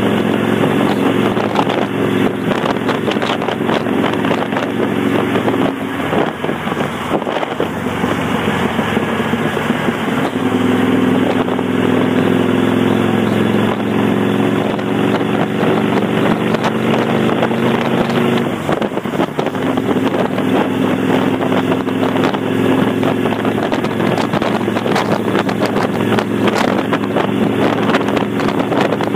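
Kawasaki Vulcan 800's V-twin engine running on the road through Vance & Hines Straight Shots pipes with the baffle plugs removed, with wind rushing over the microphone. The engine note is steady but breaks off briefly twice, about six seconds in and a little past halfway, as the throttle is eased or a gear is changed. In between, it climbs slowly as the bike picks up speed.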